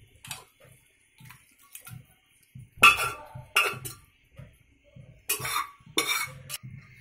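A metal spoon knocking and scraping against an aluminium pressure cooker and karahi as boiled cabbage and beef is transferred into the pan, with light clicks and about four louder clanks in the second half.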